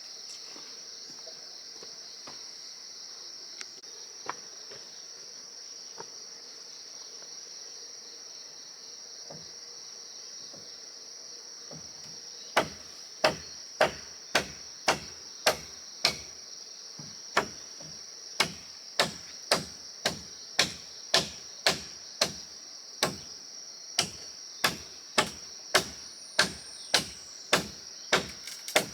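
Steady high-pitched insect drone throughout. About halfway through, a long run of loud, sharp, evenly paced blows begins, about two a second with one brief pause: repeated striking in wooden building work.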